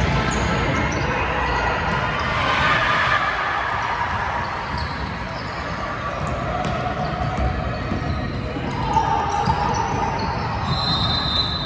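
Basketball game in a gym: a ball bouncing on the court amid crowd chatter and calls echoing in the hall, with a high steady tone near the end.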